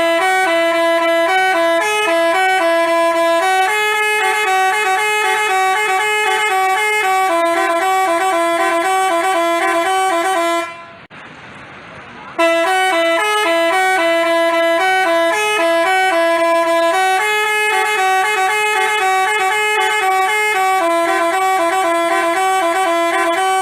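Basuri telolet bus horn playing a melody of quick, alternating notes, sounded as two matching long phrases with a short break about eleven seconds in.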